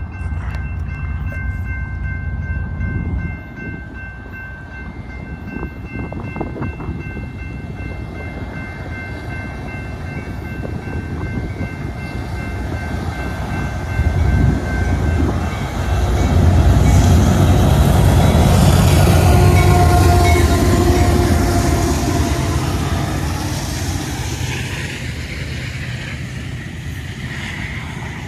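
Freight train passing a grade crossing, led by a GE AC4400CW and an EMD SD70ACe diesel locomotive. The locomotives' engines and horn grow louder and are loudest just past the middle. The loaded rock cars then rumble by on the rails.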